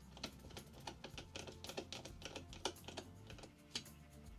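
Precision screwdriver driving tiny screws into a plastic model lamp bracket: quick, irregular light clicks and taps of the bit and the small parts, several a second.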